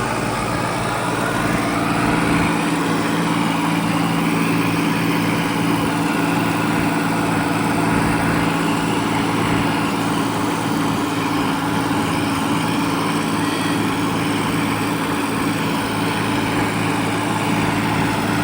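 Tractor diesel engine running steadily, a constant low engine note with no change in speed.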